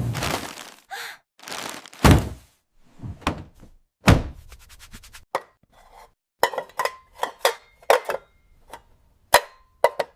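Objects being set down and knocked together. A few heavy thuds come first, then a quick run of short clinks that ring briefly.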